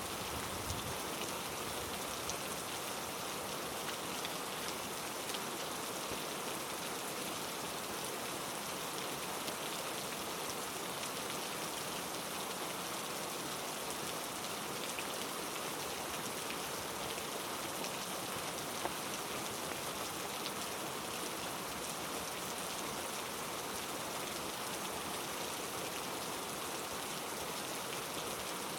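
Heavy rain falling steadily, with a few sharper drop ticks standing out here and there.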